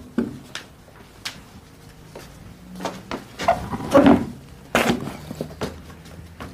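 Handling noises from a leather briefcase being opened and rummaged through at a desk: scattered light knocks and rustling, with one sharp knock a little before the end.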